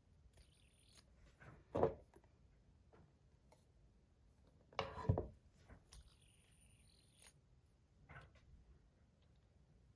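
Handling of a metal fidget spinner in the hand: soft rubbing and light clicks, with a short knock about two seconds in and a louder brief clatter about five seconds in.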